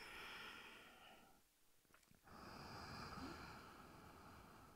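Faint, slow Ujjayi breathing through a narrowed throat, a soft hiss with each breath: one breath fades out about a second and a half in, and the next begins just after two seconds.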